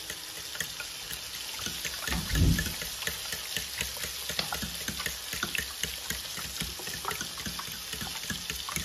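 Fork whisking raw eggs in a ceramic bowl: repeated quick clicks of the fork against the bowl with the egg sloshing. A low thump comes about two and a half seconds in.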